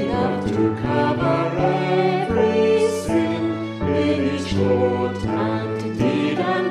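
Hymn music: steady held chords with instrumental accompaniment, the notes changing every half second or so, with singing voices.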